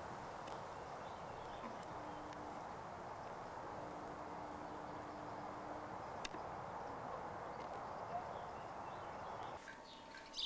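Steady outdoor background hiss through a camcorder's built-in microphone, with a single faint click about six seconds in. Near the end the sound changes abruptly, and a small bird chirps a few times.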